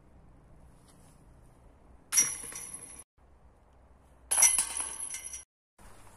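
Two discs hitting the chains of a metal disc golf basket, each a sudden clash followed by about a second of jangling, ringing metal. The second comes about two seconds after the first, and each ring cuts off abruptly.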